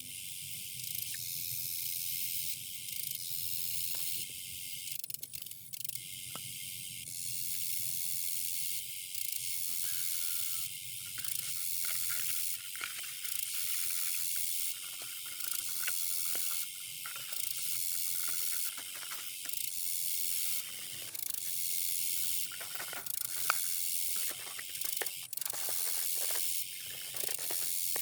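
Garden hose spraying water onto a plastic chick waterer being cleaned of algae: a steady hiss that breaks into short on-off stretches in the second half.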